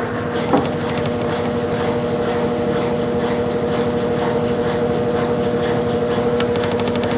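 Brastemp Ative 10 kg (BWC10) washing machine in its rinse cycle: the motor hums steadily while the water and clothes churn in the drum. A single knock sounds about half a second in, and a rapid run of ticks comes near the end.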